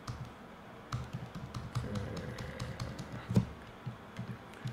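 Computer keyboard keys pressed in a quick, irregular run of clicks, paging through long psql terminal output, with one harder keystroke about three and a half seconds in.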